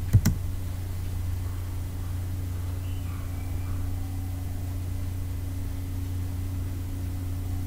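Steady low electrical hum, with a single sharp click about a quarter second in.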